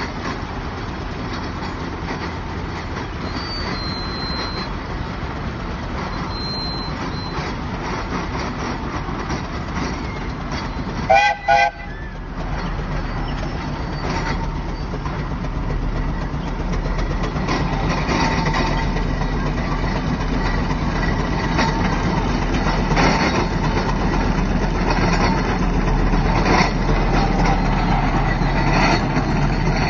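Fowler A4 steam traction engine working hard under a heavy load, hauling a road train of over 100 tons, its exhaust beat chuffing steadily and growing louder as it comes closer. A short whistle blast sounds about eleven seconds in.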